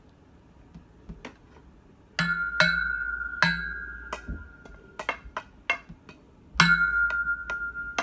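A metal pole being struck several times, the harder hits ringing on with a clear high tone. Two hard strikes about four seconds apart, with lighter knocks and taps between and after.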